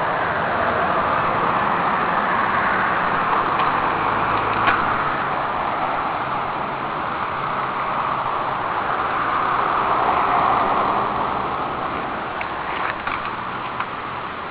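Outdoor road noise that swells and fades slowly twice, with a few light clicks.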